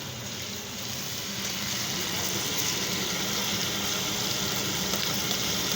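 Chicken karahi sizzling and frying in the wok, a steady hiss that grows louder about a second in.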